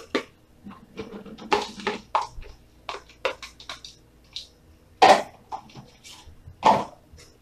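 Scattered knocks and clatter of green plastic bowls and a slotted spoon being handled on a stainless-steel counter beside a pot, with two louder knocks about five and six and a half seconds in.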